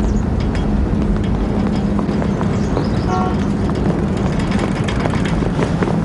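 City street traffic, a steady rumble of passing vehicles, with a short horn toot about three seconds in.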